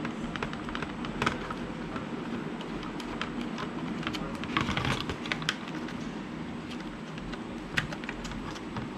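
Scattered small clicks and taps of screws and a screwdriver against a plastic exercise-bike console housing as it is screwed back together, busiest around the middle, over a steady low hum.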